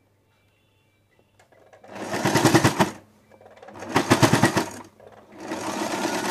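Electric sewing machine stitching a seam through satin and gold lace trim in three short runs of about a second each, stopping briefly between them, starting about two seconds in.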